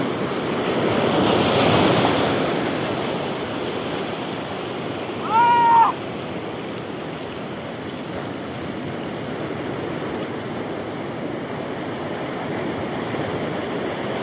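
Surf breaking and washing over a rocky reef, swelling about a second or two in. About five seconds in, one short, high call of about half a second rings out over the water noise.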